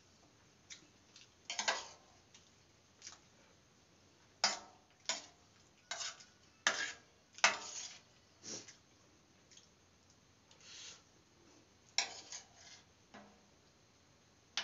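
Stainless steel divided plate and its small steel bowls clinking as food is scooped from them, in a string of sharp, irregular clinks, the loudest bunched in the middle and one more near the end.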